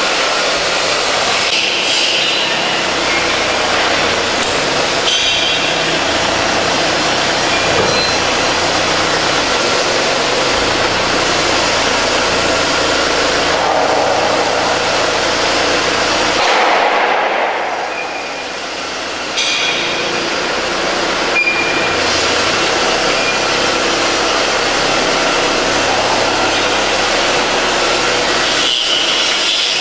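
Steady machinery and engine noise in a large metal shed, with a few sharp knocks; the noise drops away briefly about seventeen seconds in, then returns.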